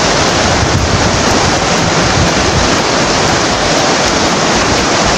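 Loud, steady rush of a swollen, fast-flowing muddy river, with irregular low wind rumble on the microphone.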